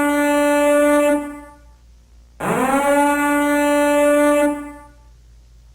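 Two long horn-like blasts. One, already sounding, ends about a second in. The second begins after about two and a half seconds, swoops quickly up to one steady pitch, holds it for about two seconds, then fades away.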